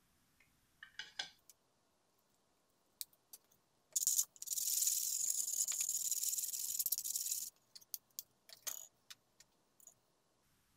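Paper tissue rubbing over a glass tile in a steady hiss for about three and a half seconds, with a few sharp clicks and taps of a metal scraper and small tools on the tile before and after.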